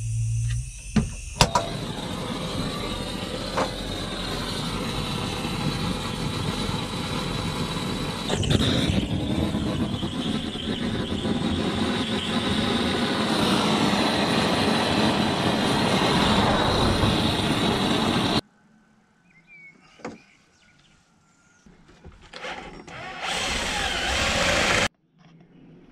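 Handheld gas blowlamp burning steadily as its flame heats a soldered copper pipe joint, after a few sharp clicks about a second in; the flame noise stops abruptly after about 18 seconds. Near the end a cordless drill runs for about two seconds.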